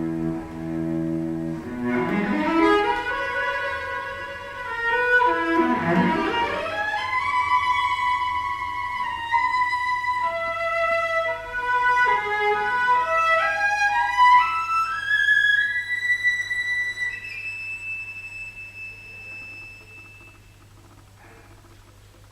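Solo cello, a copy of a 1740 Montagnana cello, played with the bow: a low held note, then sweeping runs and notes climbing into the high register. It ends on a long high note that fades away.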